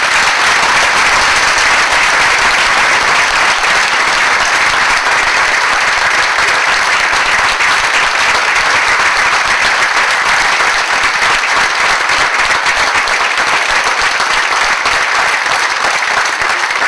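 A large audience applauding, with dense, steady clapping that thins slightly near the end.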